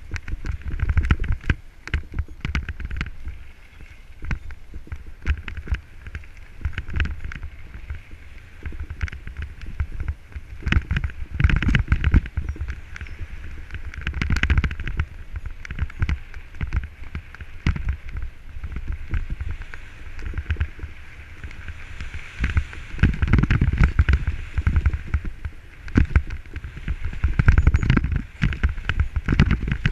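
Mountain bike descending a dirt trail, recorded from a helmet-mounted camera: a steady rush of wind and tyre rumble over the dirt, with frequent knocks and rattles as the bike runs over bumps and roots. It gets louder and rougher about halfway through and again for a stretch near the end.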